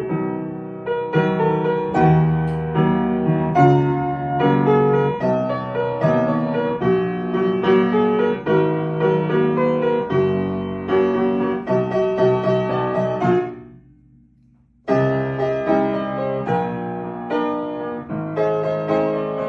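Piano music with notes struck in quick succession; it breaks off for about a second and a half about two-thirds of the way through, then picks up again.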